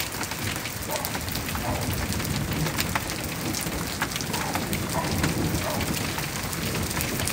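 Thunderstorm: rain falling steadily, with many sharp close drop hits and a low rumble of thunder through the middle.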